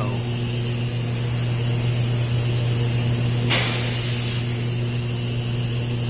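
Steam heating air vent hissing steadily as it bleeds air out of the line after being opened, so that steam can reach the heater, over a constant low hum. A short louder burst of hiss comes about three and a half seconds in.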